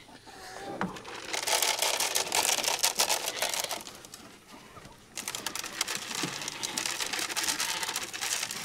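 Dry feed pellets pouring into a trough in two spells of rapid pattering, with a few soft low clucks from chickens.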